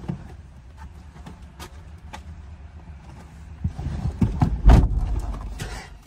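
Inside a car: a low steady rumble, then from about three and a half seconds in, a couple of seconds of rustling and soft thumps as two people climb back into the front seats.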